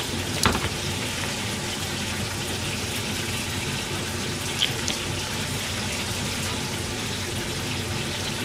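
A steady hiss of kitchen noise runs underneath, with a couple of light clicks of a utensil against a metal bowl.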